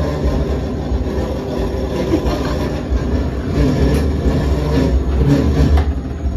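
Dark-ride car rolling along its floor track: a steady low rumble with rattling and occasional squeaks from the wheels.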